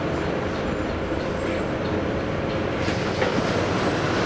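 Volvo B9TL double-decker bus's rear-mounted six-cylinder diesel engine running as the bus drives, heard from inside the passenger cabin. A steady drone that grows slightly louder about three seconds in, with one light click.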